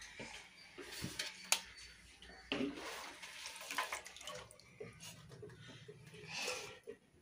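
Water splashing and dripping in a large aluminium basin as handfuls of green bean pods are swished, lifted out dripping and dropped back in during washing, with a few sharper splashes and clatters.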